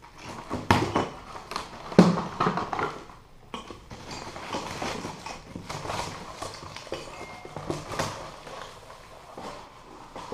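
Cardboard packaging being handled and pulled out of a box, with rustling, scraping and irregular knocks; the loudest knock comes about two seconds in.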